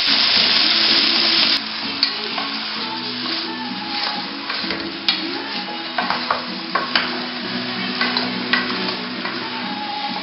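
Lamb pieces sizzling as they brown in olive oil in a pot. The sizzle is loud for the first second and a half, then drops suddenly to a quieter sizzle with scattered clicks and knocks as the pieces are turned by hand. Soft background music plays underneath.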